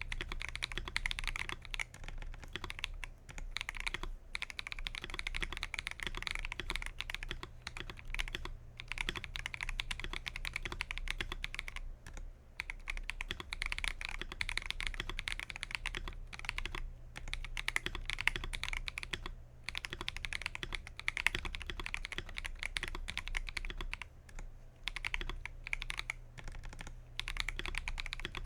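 Typing on an Akko 5075S mechanical keyboard: fast, continuous runs of keystrokes, broken by short pauses every few seconds.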